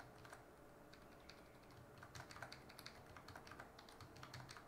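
Faint, irregular clicking of a computer keyboard and mouse at a desk, getting busier about halfway through.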